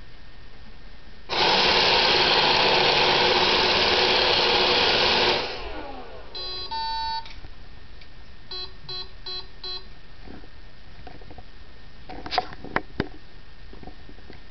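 Roomba robot vacuum malfunctioning. Its motors run loudly for about four seconds and cut out, then it gives a pair of electronic beeps, a run of four short beeps, and a few sharp clicks near the end. The owner calls the fit a seizure.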